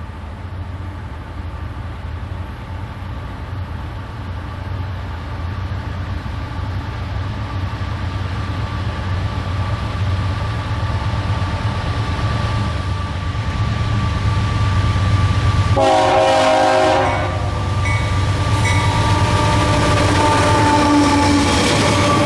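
Diesel locomotives of a train approaching, their engine rumble growing steadily louder, with one horn blast of about a second roughly sixteen seconds in. Thin high tones join the train sound near the end.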